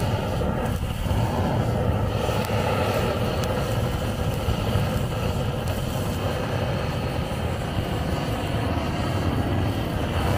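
Handheld long-nozzle gas torch burning with a steady, even rush of flame as it sears a whole rockfish on a grill.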